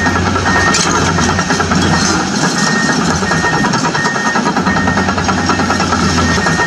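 A steady engine idling sound, like heavy machinery, running at an even level.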